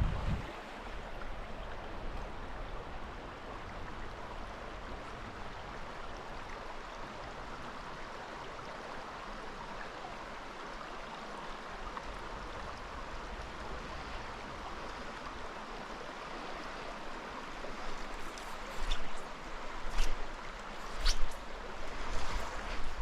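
Small mountain trout stream flowing steadily, an even rush of water. Near the end several short, louder knocks or splashes stand out above it.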